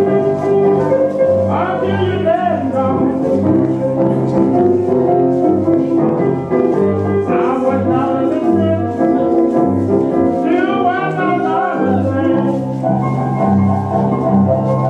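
Blues music playing for slow couple dancing, with a low bass line stepping from note to note under a lead that bends in pitch.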